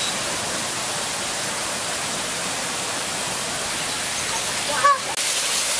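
A steady, even rushing noise, with a short wavering call about five seconds in.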